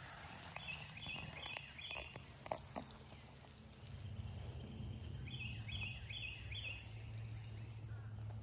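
Chirping calls from a bird or insect, short stepped notes repeated in quick runs, one near the start and another a little past the middle. A few sharp knocks come between one and three seconds in, over a steady low hum.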